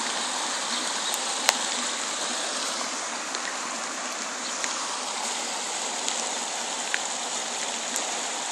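Steady rushing of running floodwater, with a few faint sharp clicks scattered through it.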